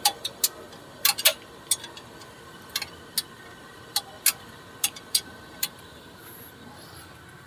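Hand tool working a tight bolt on a car engine's coolant pipe: about a dozen sharp metal clicks at irregular spacing, stopping a little past halfway.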